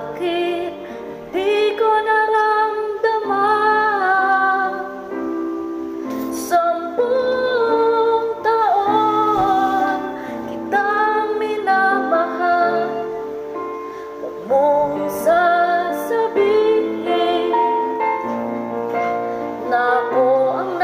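A woman singing a slow, tender ballad melody with held, wavering notes over a soft instrumental accompaniment.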